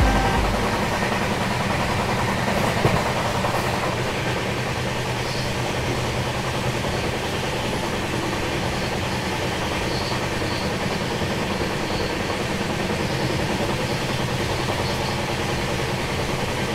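Express passenger train running at speed, heard from inside a coach: a steady rumble of the wheels on the rails.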